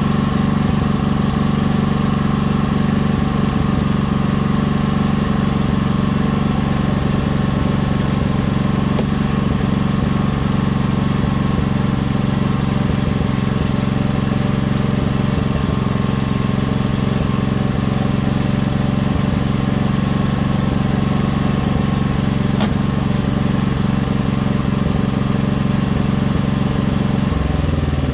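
Small engine running steadily at constant speed, slowing down near the end.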